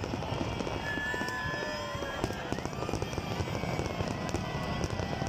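Aerial fireworks bursting in a dense, continuous barrage of crackles and pops.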